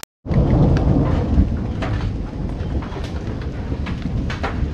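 Approaching thunderstorm: a steady low rumble with scattered faint clicks.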